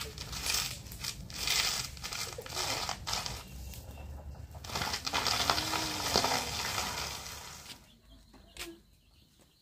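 Live hens flapping and scuffling, with a crinkling rustle. The noise goes on for about eight seconds and then dies down near the end.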